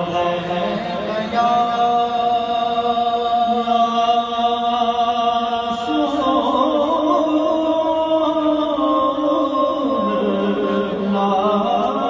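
A man singing a naat unaccompanied into a microphone, drawing out long held notes. The melody steps to a new pitch about six seconds in and again about ten seconds in.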